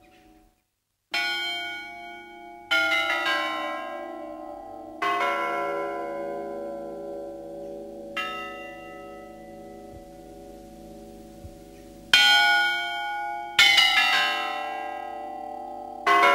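Russian Orthodox church bells rung by hand with ropes, starting about a second in. There are a handful of single strikes one to four seconds apart, each left ringing out, and several bells of different pitch sound together. The strikes come closer together and louder near the end.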